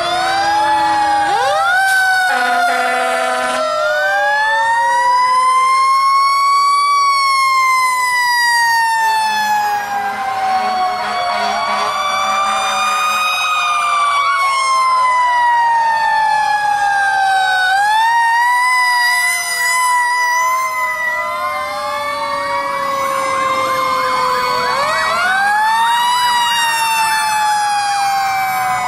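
Several fire-truck sirens wailing at once as fire apparatus drive past, their pitches overlapping in slow rises and long falling glides.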